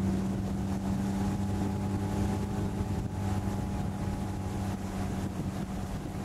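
Motorboat engine running steadily under load while towing a water skier, heard from aboard the boat, with wind noise on the microphone.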